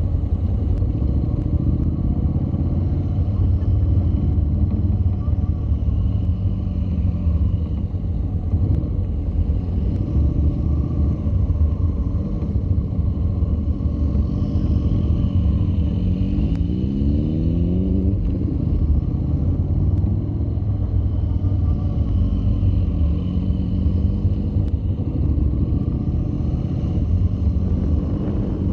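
Honda NC700's 670 cc parallel-twin engine running at low speed, its pitch rising and falling with the throttle over a steady low rumble. The revs climb clearly about two-thirds of the way through.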